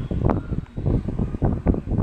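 Loud, irregular rumbling and crackling noise with a faint steady tone underneath, between stretches of electronic alert tones.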